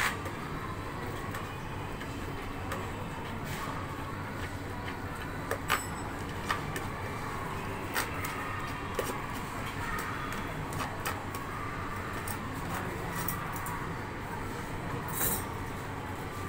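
Steady background hum of a drinks-stall counter, with a few short light clicks and knocks scattered through it.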